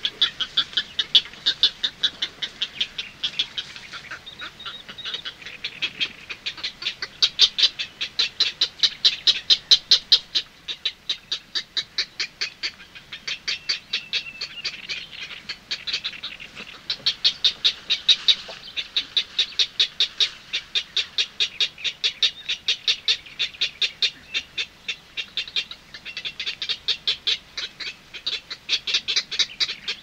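Purple heron chicks bill-clicking and calling: fast runs of short, sharp, repeated ticks, several a second, in bouts with brief lulls.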